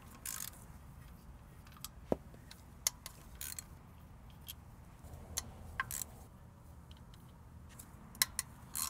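A few sharp, scattered metal clicks and clinks of a wrench on the oil-pan bolts and of loose bolts being handled, over a quiet background.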